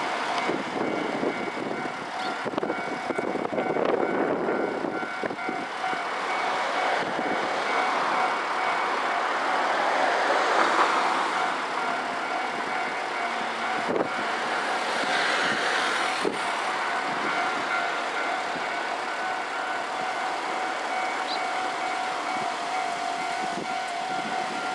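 Japanese railway level-crossing warning bells ringing steadily, while road vehicles pass and fade away a few times.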